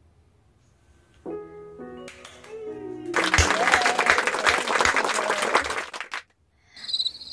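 A few closing piano notes, then hands clapping for about three seconds until it stops abruptly. Near the end a twinkling chime sound effect starts.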